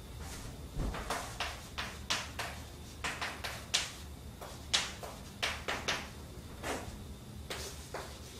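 Chalk tapping and scraping on a chalkboard as an equation is written: an irregular run of short, sharp strokes, about two or three a second.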